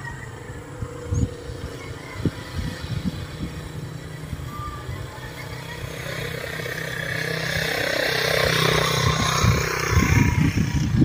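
Motorcycle running with wind buffeting the microphone in uneven low thumps. The noise builds steadily from about six seconds in and is loudest near the end.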